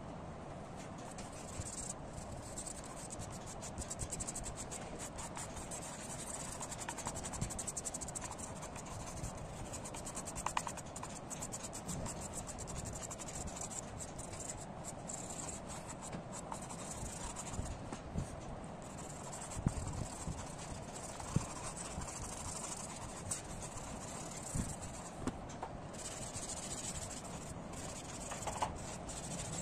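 Pink pastel crayon scratching and rubbing across drawing paper in repeated colouring strokes, with a fingertip rubbing the colour in. A steady hiss runs behind it.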